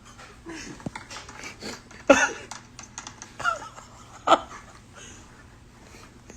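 A person wheezing with laughter: three short, high squeaks of breath among quiet clicking breaths.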